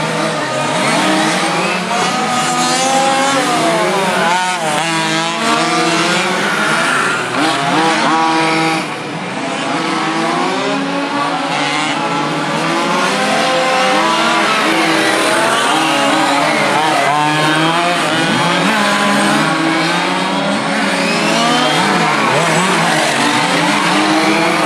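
Several radio-controlled model racing cars lapping a track, a mix of high motor notes rising and falling in pitch over one another as the cars speed up and slow down.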